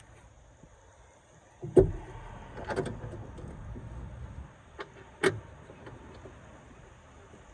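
Several sharp knocks and clunks from tools and battery hardware being handled during a car battery swap. The loudest comes about two seconds in, a quick rattle of knocks follows just under a second later, and another sharp knock comes past five seconds.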